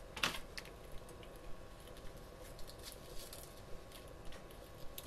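Faint, scattered clicks and light scrapes of small hand work: a craft knife picked up from a cardboard-covered bench and used to strip the insulation off the inner wire of a thin RG316 coax cable. The sharpest click comes about a quarter second in.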